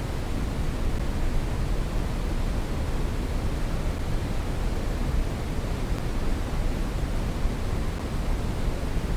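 Brown noise: a steady, unchanging deep hiss and rumble, strongest in the low end and falling away toward the highs.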